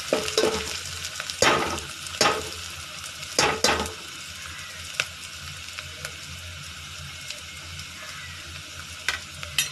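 Chopped onions frying in hot oil in an aluminium pot, a steady sizzle as they turn reddish-brown. A metal spoon scrapes and knocks against the pot several times in the first four seconds as they are stirred, with a couple of light clicks near the end.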